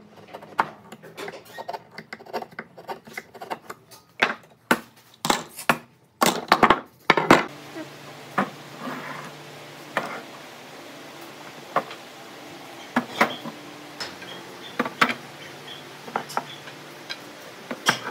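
Irregular knocks and clicks of wood and hand tools being handled in a workshop, with a run of louder knocks about halfway through. After that a faint steady hum sets in beneath sparser taps.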